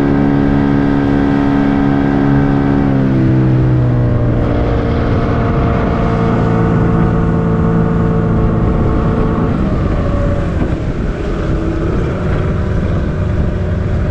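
A freshly serviced 15 hp outboard motor running smoothly. Its pitch drops as it is throttled back about three seconds in, it settles at a lower steady speed, and it changes speed again about ten seconds in.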